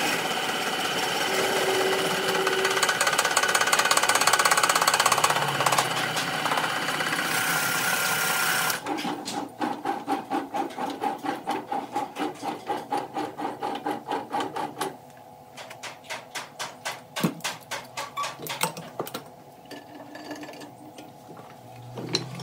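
Woodworking tool noise: a steady machine-driven cutting or sanding noise that stops abruptly about nine seconds in. Then comes a run of rhythmic scraping strokes, about three a second, that grow fainter near the end.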